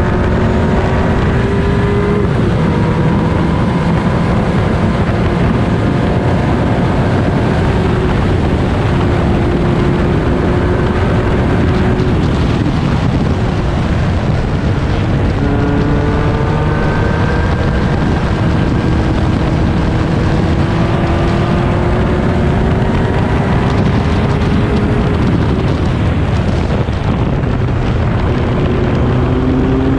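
Onboard sound of a historic single-seater racing car's engine under heavy wind and road noise. The engine note climbs slowly on each straight, drops back once about two seconds in, again around twelve seconds in, and near the end, then climbs again.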